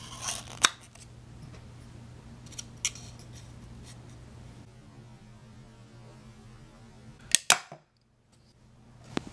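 Small homemade wooden pistol crossbow being handled and cocked, with light clicks as its string is drawn back and caught on the trigger mechanism, over a steady low hum. Near the end come two loud sharp cracks a fraction of a second apart: the crossbow firing and its dowel bolt striking a wooden target.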